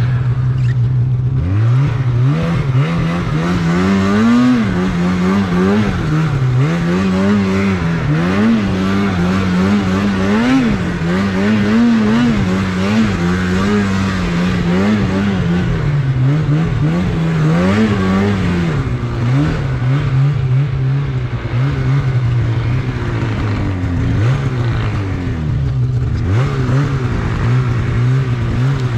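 Snowmobile engine, running steadily at first, then revving up about a second and a half in and rising and falling in pitch again and again as the throttle is worked through deep powder snow, settling to a steadier pitch near the end.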